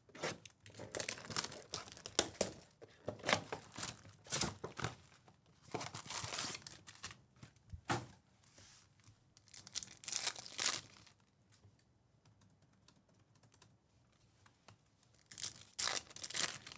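Trading-card hobby box and its packaging torn open, with the crinkling of card packs being handled; after a few quiet seconds, a foil card pack is ripped open near the end.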